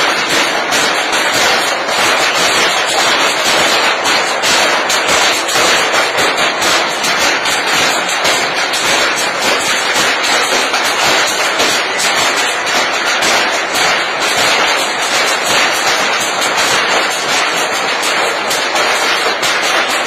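Sticks beating a metal sheet laid on the ground: a loud, continuous clatter of rapid, overlapping bangs.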